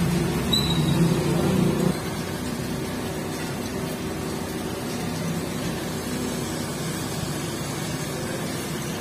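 A steady low machine hum, louder for about the first two seconds, then dropping to a lower even level. A brief faint high squeak comes about half a second in.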